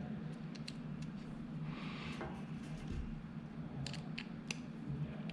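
Small screwdriver turning out the blade screws on a Wahl Detailer trimmer, with a faint scrape about two seconds in and a few light metallic clicks near the end.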